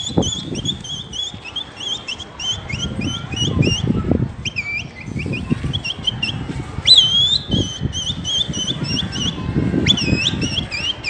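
Repeated sharp whistles, short hooked notes about three a second in several bouts, some starting with a longer swooping note, typical of a pigeon flyer whistling to keep his flock circling.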